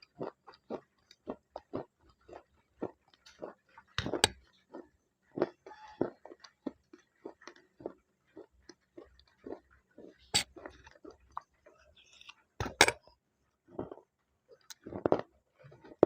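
Slate pencil being bitten and chewed close to the microphone: a run of short dry crunches, a few a second, with louder sharp bites about four seconds in, around ten and thirteen seconds, and again near the end.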